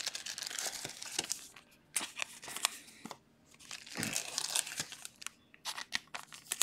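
Baseball trading cards being handled and sorted by hand: card stock sliding, flicking and tapping together in irregular rustles and clicks, with a short pause about three seconds in.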